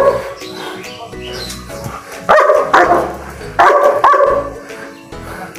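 German shepherd barking in two loud bouts, about two and a half and four seconds in, at a football that is held back from it: barking to demand play.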